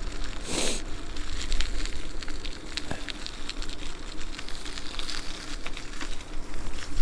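E-bike tyres rolling over wet, gritty, slushy pavement, a steady crackle of small clicks and hiss, with a short louder burst of hiss under a second in. Wind rumbles on the microphone.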